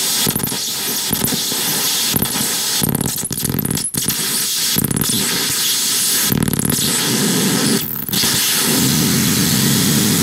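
Chaotic noise from two Serge wave multipliers patched in a feedback loop: a dense, hissing noise whose texture keeps changing as the knobs are turned, thinning out briefly a few times.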